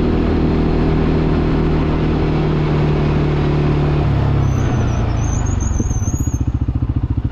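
CFMoto 450 ATV's single-cylinder engine running at a steady cruising pitch, then easing off about four seconds in, its note dropping to a slow, evenly pulsing beat as the quad slows.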